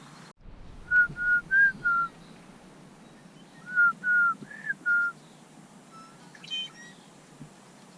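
Clear whistled notes: a phrase of four short, evenly spaced notes about a second in, repeated about three seconds later, then a few fainter notes near the end.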